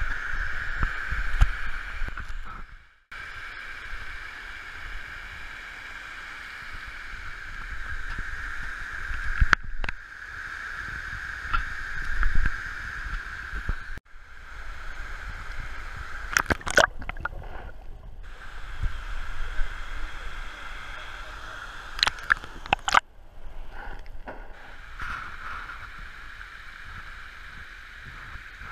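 Stream water sloshing and gurgling at water level, over a steady high buzz. The sound cuts off abruptly several times, and there are a few sharp clicks in the second half.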